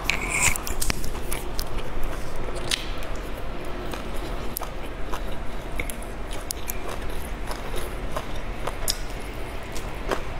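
Close-miked chewing of a mouthful of soft steamed stuffed bun, with scattered small wet clicks and smacks throughout.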